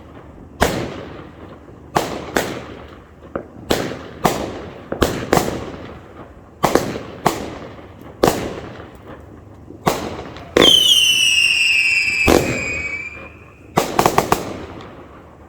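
World Class Pee-Ka-Boo 25-shot, 200-gram fireworks cake firing: sharp bangs go off one after another, about every half second to a second. About ten seconds in, a whistle sounds for about three seconds, falling slightly in pitch, and a quick run of bangs comes near the end.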